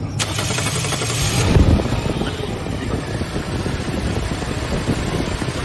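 Toyota Fortuner engine turning over and running after a fuel pump replacement: a loud, steady noise that starts suddenly just after the opening and swells briefly about a second and a half in.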